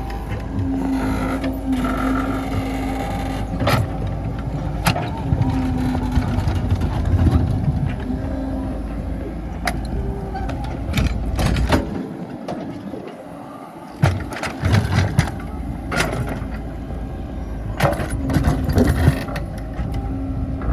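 Excavator working at prying a large stone: a steady running hum with a steady tone that comes and goes, broken by sharp knocks. The hum drops away about twelve seconds in and comes back with a knock about two seconds later.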